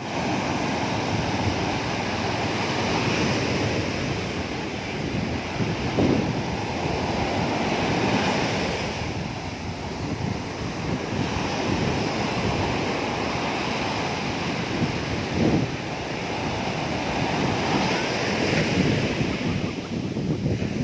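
Ocean waves breaking and washing on a beach, a continuous surf rush that swells and ebbs, with wind buffeting the microphone.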